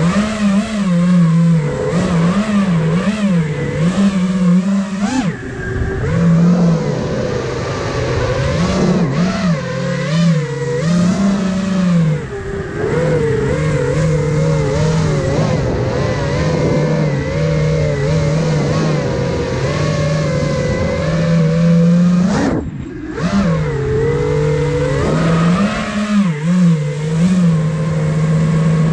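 The four brushless motors and propellers of an iFlight Nazgul Evoque F5 FPV quadcopter, heard from the GoPro mounted on board: a buzzing whine whose pitch rises and falls constantly with the throttle. Power drops briefly about 22 seconds in, then climbs again.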